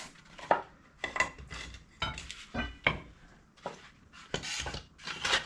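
Metal tools clinking and clanking as they are handled and moved about: a series of separate knocks, some with a short metallic ring, about one or two a second.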